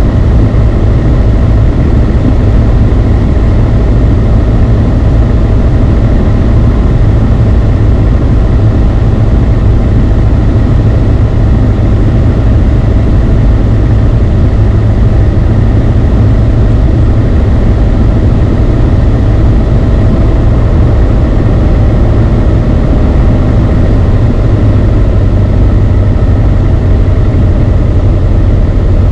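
Beechcraft Sundowner's four-cylinder Lycoming O-360 engine and propeller droning steadily in flight, heard from inside the cockpit.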